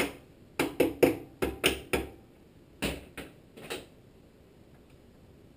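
Hammer taps driving a pulley along the crankshaft of a Tecumseh HSK70 small engine: about a dozen sharp metallic knocks with a short ring, in quick groups of three or four. The last few are softer, and the tapping stops about four seconds in.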